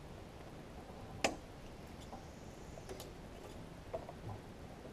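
A few short sharp clicks and taps from hands rigging a soft plastic trick worm onto a hook, the sharpest about a second in, over a low steady hiss.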